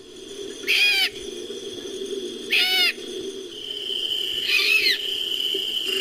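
Made-up creature sound effect for a nine-banded armadillo: three short, shrill, arching calls about two seconds apart over a steady low drone and a thin steady high tone.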